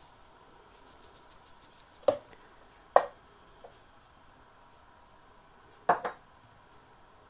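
A metal spoon clinking against cookware in a few sharp strikes, about two and three seconds in and twice in quick succession near six seconds, while cream and saffron are being added to the kheer. Faint crackling comes about a second in.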